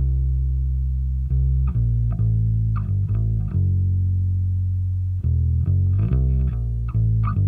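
Background music: plucked bass guitar and guitar playing a line of held low notes.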